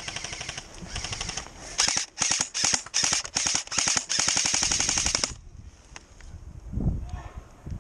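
Airsoft gun firing on full auto: a rapid rattle of shots in a run of short bursts, ending in a longer burst that cuts off about five seconds in. A few low thuds follow.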